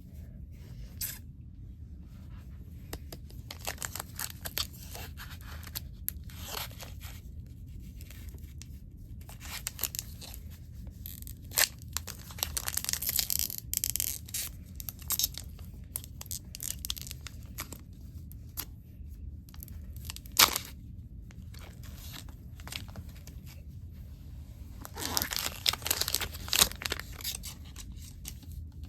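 Crinkling and tearing of a Pokémon booster pack's foil wrapper as it is opened, with scattered crackles and clicks; the crackling comes in louder bursts about halfway through and again near the end.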